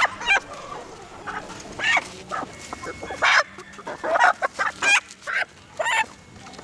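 Live chickens clucking and squawking in short, irregular calls, about a dozen of them.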